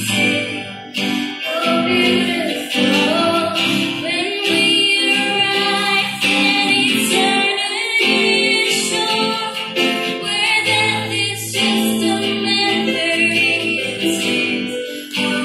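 A woman singing a gospel song while playing an acoustic guitar.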